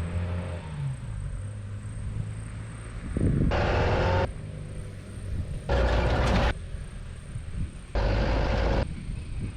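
An engine running steadily, broken three times by louder stretches about a second long.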